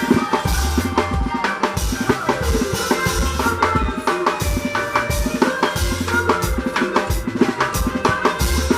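Live drum kit playing a fast, steady sebene-style groove: bass drum, snare and rimshots. Bass and other pitched band instruments play along.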